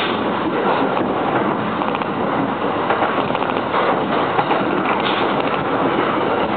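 Commuter electric train running along the line, heard from inside the carriage: a steady rush and rumble of the train in motion.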